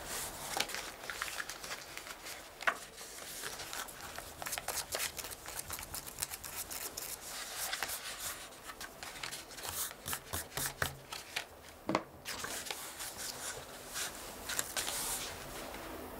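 Paper being handled at a desk: irregular rustling, shuffling and light taps as sheets are moved and sorted by hand, with pen-on-paper writing at times. A few sharper clicks stand out, the loudest about 12 seconds in.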